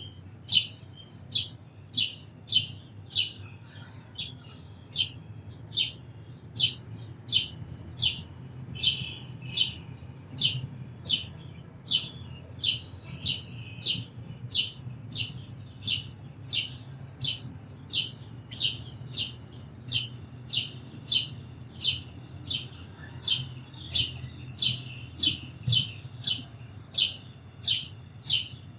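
A sparrow chirping, one short sharp chirp repeated at an even pace of about one and a half a second, over a steady low hum.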